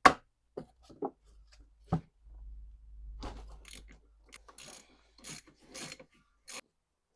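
Hand work on a steering rack being taken apart: a few sharp clicks, then scraping and rubbing of parts, with a low rumble under it for a couple of seconds.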